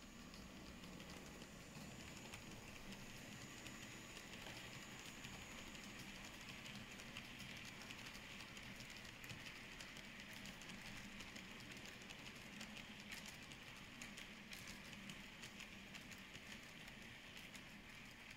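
N-scale model train, a Minitrix BB 22000 electric locomotive hauling grain hopper wagons, running along the track: a faint steady whir with many light clicks of wheels on rail, loudest in the middle as the wagons pass close.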